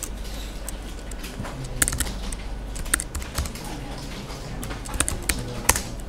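Typing on a computer keyboard: separate keystroke clicks, unevenly spaced, about two a second.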